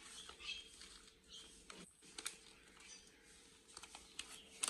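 Faint rustling and scattered light clicks from hands preparing food, as achar gosht spice mix is added, with a sharper click near the end.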